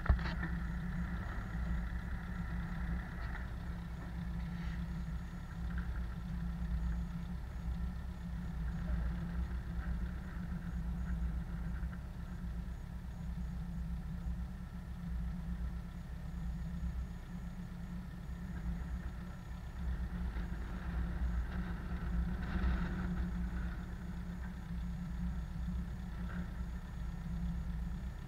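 Tractor diesel engine idling steadily, with one brief sharp knock right at the start.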